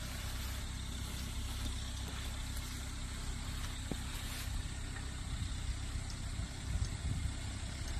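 Terios 4x4's engine running at low revs as the small off-road SUV crawls slowly down into a rut on a dirt track. It is a steady low hum, with uneven low rumbles setting in near the end.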